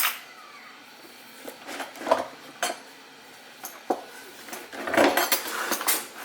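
A few separate knocks, then from about five seconds in a dense run of metal clattering: cutlery and utensils shifting and rattling inside the drawer as it is worked on.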